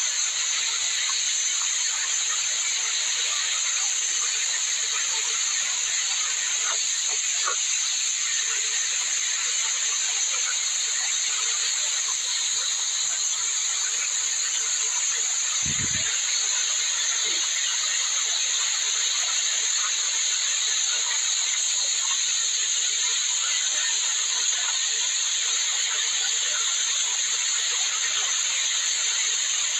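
Small waterfall pouring steadily onto rock and a person standing under it: an even hiss of falling, splashing water. A brief low thump about halfway through.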